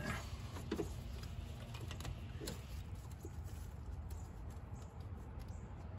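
Scattered light clicks and taps of plastic and metal as gloved hands and a pry tool work at a stubborn ignition coil-pack connector, trying to release its locking tab. A low steady hum runs underneath.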